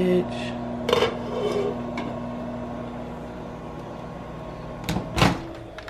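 A steady low electrical hum, like a kitchen appliance running. A few light knocks come over it, the hum stops about five seconds in, and a louder clatter follows.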